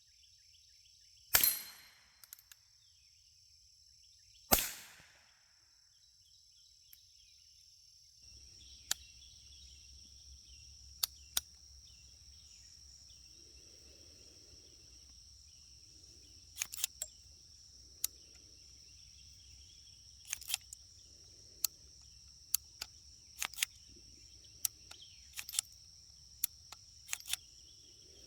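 Two .22 rimfire shots from a Ruger Single-Six single-action revolver, a few seconds apart, each with a short ringing tail. Later comes a run of much quieter sharp clicks and taps over a steady high insect buzz.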